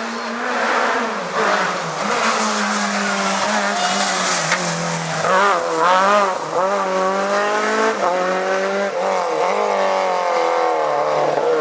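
Rally car engine revving hard at full race pace, its pitch climbing and dropping through gear changes, with quick falls and rises near the middle as it brakes and downshifts.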